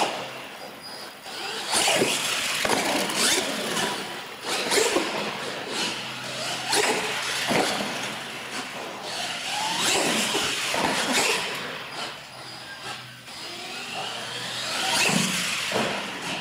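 Radio-controlled monster truck driven hard, its motor revving up and down in rising and falling whines. Repeated knocks and thuds come as the truck hits ramps and lands on the concrete floor.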